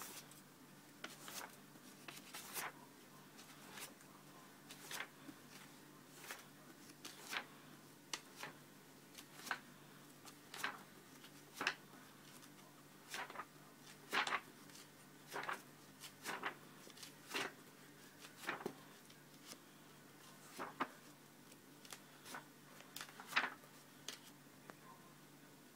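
Pages of a thick book being turned one after another by hand: a short papery swish about once a second, at an uneven pace.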